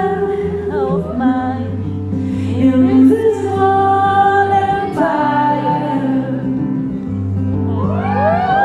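A woman singing live over her own guitar, with steady low bass notes underneath. Near the end, several overlapping whistle-like glides rise and fall over the music.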